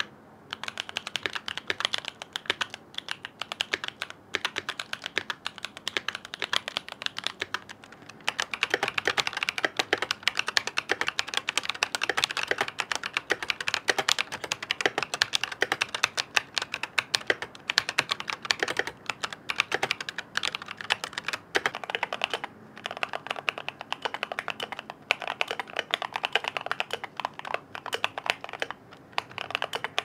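Fast, continuous typing on mechanical keyboards, a dense run of key clacks. It is first on a board with BSUN Baby Kangaroo tactile switches, then on one with Everglide Dark Jade Moyu Black switches, with brief pauses where the typing stops between boards.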